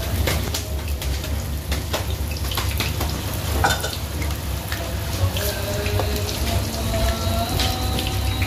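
Battered tempeh slices (tempe mendoan) sizzling steadily in hot oil in a frying pan, with now and then a sharp clink of a metal spoon against the metal bowl of batter.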